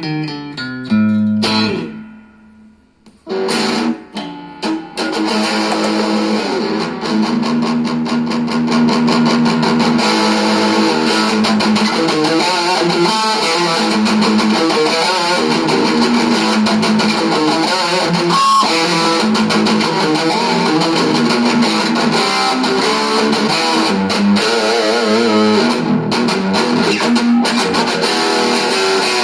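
Electric guitar played through a Cort MX15R amplifier. A few picked notes ring out and die away, and after a short pause continuous playing starts and runs on steadily.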